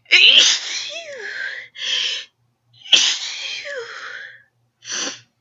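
Two forceful pepper-induced sneezes about three seconds apart, each a sudden loud burst that trails off in a drawn-out voiced tail, with short gasping breaths between them.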